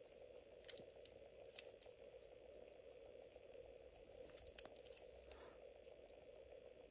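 Near silence with a steady faint hum, and a few faint small clicks and rustles about a second in and again around the middle, from cotton-gloved fingers working a watch's screw-down crown.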